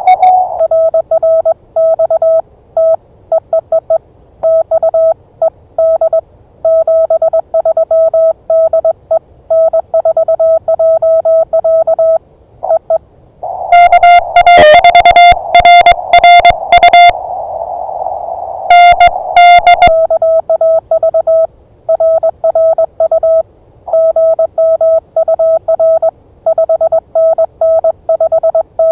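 Morse code (CW) tones from an amateur radio transceiver, stations calling in a pileup as steady keyed beeps at one pitch. About halfway through comes a louder, slightly higher keyed tone over receiver hiss, lasting about six seconds before the lower beeps resume.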